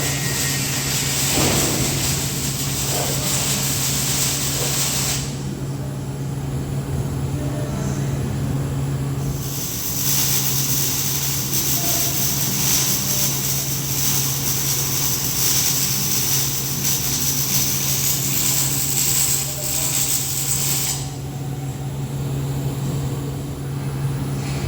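TIG welding arc hissing over a steady low hum from the welding machine. The hiss runs for about five seconds, stops, comes back about ten seconds in for roughly eleven seconds, and stops again near the end, while the hum carries on.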